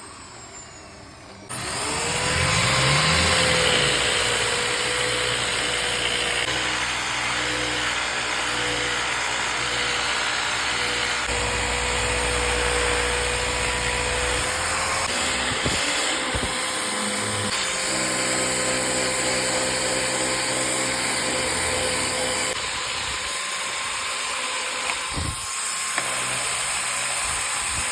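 An electric woodworking power tool starts up about a second and a half in, its motor spinning up to a steady high whine over a dense rushing noise, and runs on without stopping.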